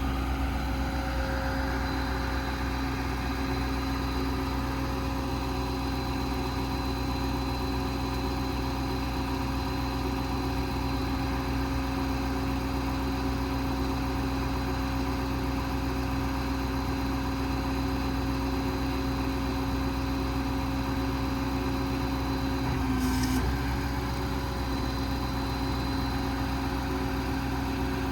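Ford 6.7 Power Stroke V8 turbo-diesel engine idling steadily, with a constant hum; near the end it briefly rises in pitch and level before settling back.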